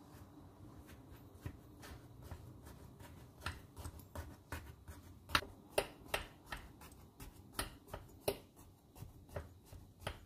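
A fork pricking a baked chocolate sponge cake in a glass baking dish: a run of short, sharp clicks, about two or three a second, as the tines tap through the crust. The cake is being pricked so the milk can soak in.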